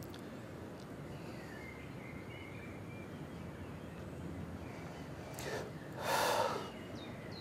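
A man breathing audibly through the nose: a short breath about five and a half seconds in, then a stronger breath lasting under a second, over steady background noise with faint bird chirps.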